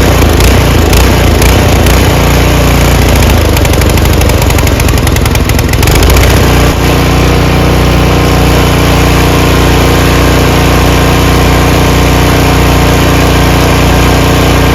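Harbor Freight Predator 212cc single-cylinder four-stroke engine running, rough and uneven for the first six seconds or so, then settling into a steady, even run. It runs again now that the clogged fuel-tank filter has been cleaned.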